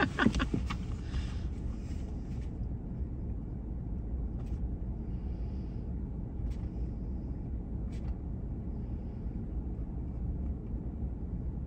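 Steady low rumble of a truck cab with the engine idling, under a few faint clicks and soft scratching of a ballpoint pen writing on paper.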